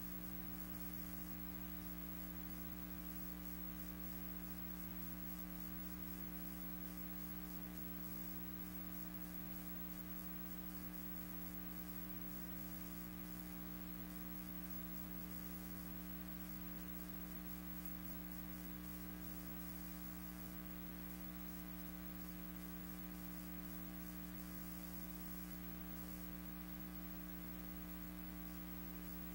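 Steady electrical hum with a faint hiss, unchanging throughout: the footage itself has no sound.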